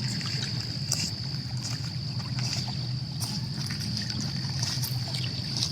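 Small waves lapping at a lakeshore, a low, uneven wash, with a steady high-pitched tone over it and a few faint ticks.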